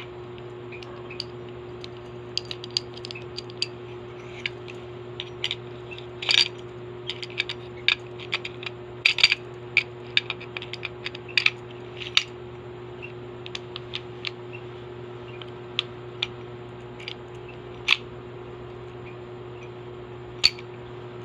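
Irregular small clicks and clacks of gun parts knocking and sliding together as a handgun is taken apart and its recoil spring and guide rod are handled, busiest in the middle. A steady low hum sits underneath.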